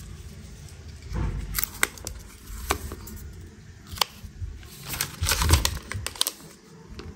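Unboxing handling sounds: packaging and parts being moved about, with irregular sharp clicks and taps over rustling and crinkling. It starts about a second in and is busiest and loudest a little past the middle.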